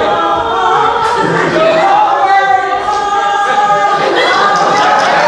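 A small group of women singing a wordless siren song together, long held notes that slide up and down in pitch.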